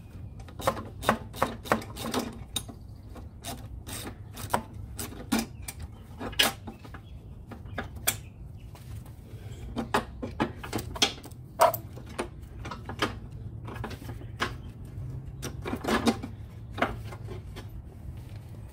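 Irregular sharp clicks and knocks of metal parts and tools being handled at a Toro Recycler 22 mower's rear drive transmission during a drive belt change. The clicks often come in quick runs, with a steady low hum underneath.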